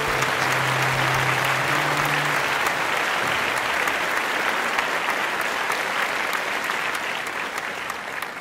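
A large crowd applauding steadily. The last held notes of music die away about two seconds in.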